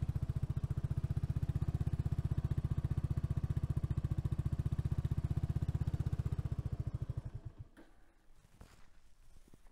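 Kawasaki Estrella's air-cooled single-cylinder engine idling with a steady, even pulse, then switched off about seven seconds in. A few faint knocks follow.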